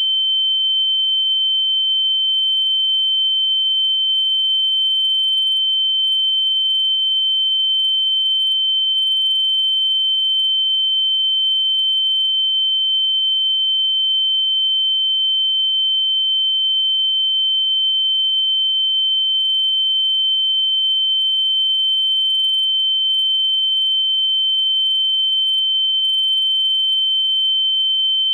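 A loud, electronically generated pure sine tone, high-pitched and held perfectly steady without any change in pitch or level.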